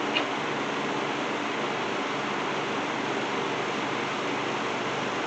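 Steady hiss of background noise with a faint low hum, and one small click just after the start.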